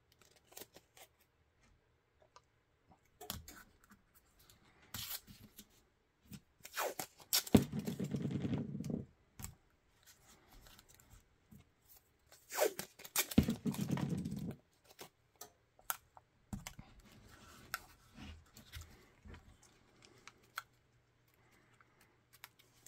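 Blue painter's tape being pulled off the roll in two long strips, about a third and two thirds of the way through, with scattered clicks and rustles of tape being pressed onto a pistol mold.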